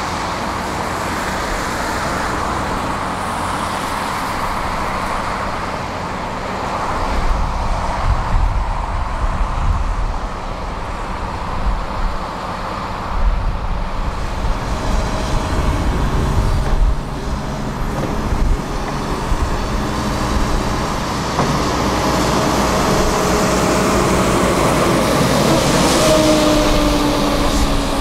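Diesel engines of heavy construction machinery (excavator and truck) running. A steady low rumble grows louder and more uneven from about seven seconds in, and a faint whine joins in the second half.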